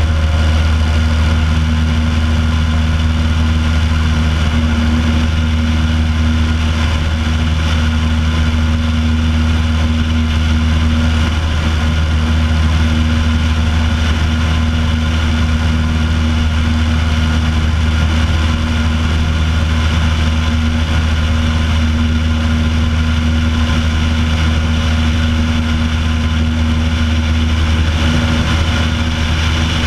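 Piper Pacer's piston engine and propeller running steadily in cruise flight, a constant low drone with steady overtones, heard from outside the cabin at the wing strut.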